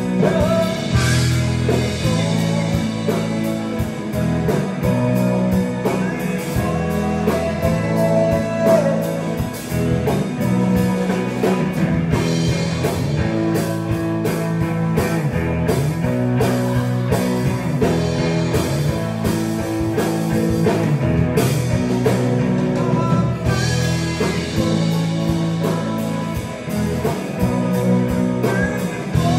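Live rock band playing: electric guitars and a drum kit, with singing over the top, heard through the room of a small bar.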